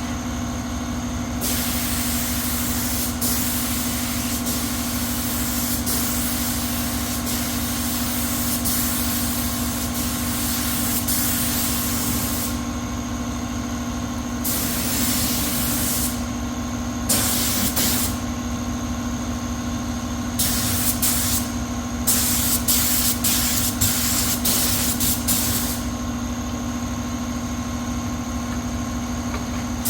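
Compressed-air hiss in repeated bursts, one long stretch of about ten seconds, then shorter ones, then a run of quick short blasts near the end, over a steady machine hum.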